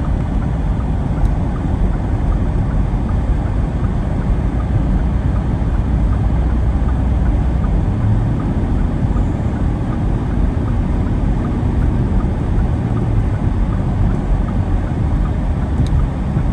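Storm wind buffeting the microphone: a loud, steady, gusty rumble, heaviest in the low end.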